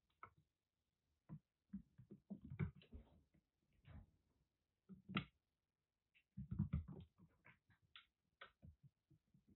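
Faint, irregular taps and scuffles of a kitten's paws scampering on a wooden floor, coming in quick clusters.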